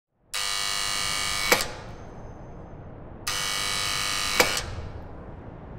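An electric buzzer sounding in two harsh buzzes, each about a second long and cut off by a sharp click, the second starting about three seconds in.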